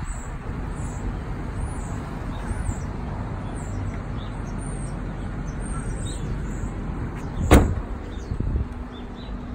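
Car door slammed shut once about seven and a half seconds in, followed by a lighter thump, over a steady low rumble.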